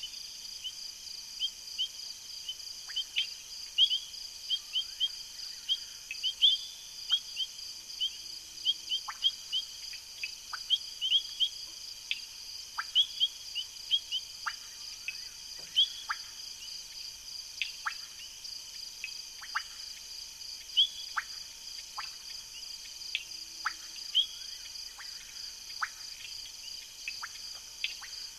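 Night chorus of insects and frogs: a steady high trill of crickets with many short chirps and sharp descending peeps scattered through it.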